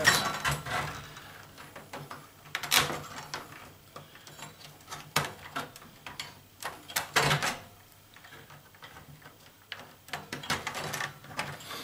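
Flush cutters snipping wires and a circuit board rattling against the metal chassis of a stereo receiver: a handful of scattered sharp clicks, with a quick cluster of rattles near the end.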